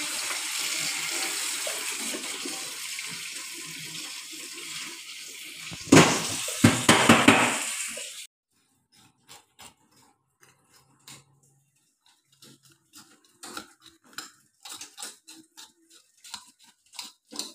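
Tap water running into a pot of fish, getting louder and splashier about six seconds in, then cutting off abruptly. After that, only scattered light clicks and knocks.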